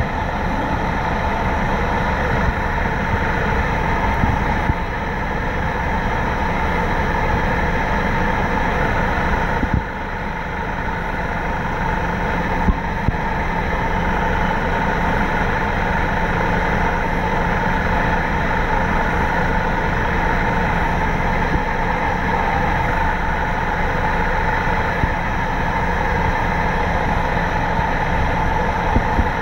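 Engines and water jets of the Flying Cat 4 high-speed catamaran ferry running steadily as it turns in the harbour, a constant drone with a steady higher whine, easing a little about ten seconds in.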